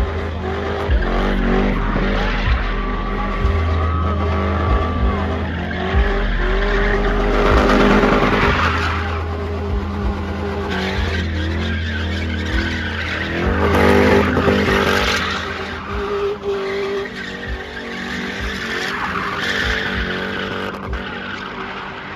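A spinning car's engine held at high revs while its rear tyres spin and skid through donuts in a burnout. The engine and tyre noise swells loudest twice, about a third of the way in and again past the middle.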